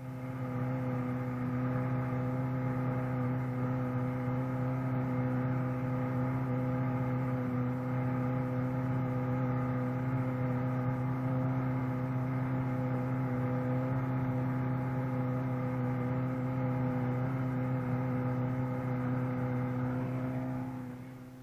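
Outboard motor running at a steady speed, one unchanging droning note with its overtones, fading in at the start and out near the end.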